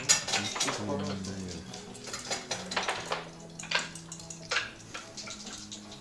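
Bar ambience: scattered sharp clicks and clinks, with low voices in the background.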